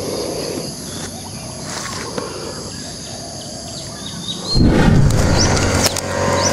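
Outdoor orchard ambience: insects holding a steady high drone, with small bird chirps. About four and a half seconds in, the sound jumps to a louder noisy rumble and rustling of footsteps through grass and dry leaves.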